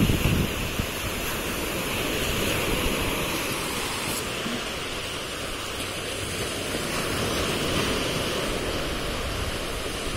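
Sea surf breaking and washing up a sandy beach, a steady rushing noise that swells gently a couple of times.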